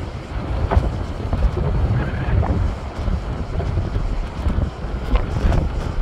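Sea waves breaking and washing over shoreline rocks, a steady rush of surf with a few sharper splashes, under a low rumble of wind on the microphone.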